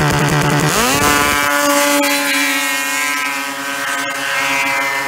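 Race snowmobile engine launching at full throttle. After a choppy, blipping idle it revs sharply up in pitch just under a second in, then holds steady at high revs as the sled pulls away up the drag hill.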